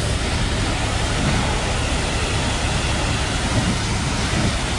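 High-pressure washer wand spraying water against a truck's chrome front bumper and the wet concrete floor: a steady hiss over a low hum.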